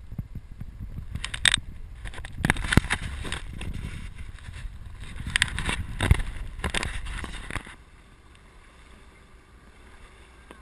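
Sea water sloshing and splashing around a GoPro held at the surface, with irregular sharp slaps over a low rumble. It drops away abruptly a little under eight seconds in, leaving a faint hiss.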